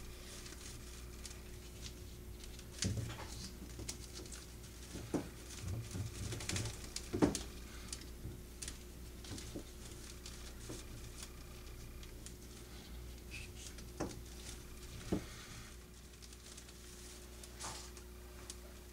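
Jute twine being wound by hand around the dry twig bristles of a cinnamon broom: faint rustling with scattered small clicks and crackles of twigs, over a low steady hum.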